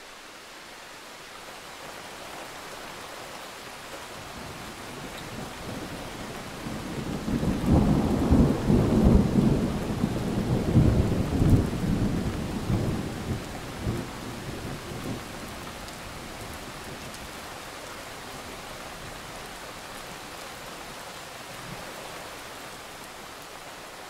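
Steady rain with a long roll of thunder that swells about a quarter of the way in, rumbles loudest in the middle, and dies away, leaving the rain alone.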